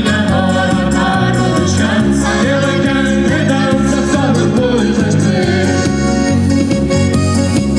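A band playing Portuguese popular dance music with a steady, even bass beat and singing.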